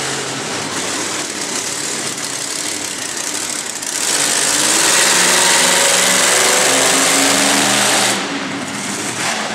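Monster truck engine running, then revved hard from about four seconds in. The loud engine note holds for about four seconds and drops back about eight seconds in.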